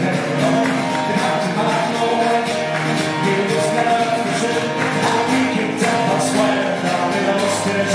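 Live amplified Irish folk music: an acoustic guitar and a smaller bouzouki-type stringed instrument strummed together in a brisk, even rhythm.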